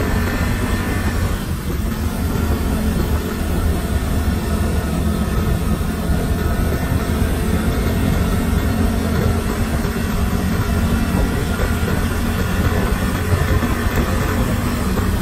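Yamaha Mio scooter under way at a steady speed. Its small single-cylinder engine runs with a constant drone, under a steady rumble and rush of tyres and air on rough, cracked concrete.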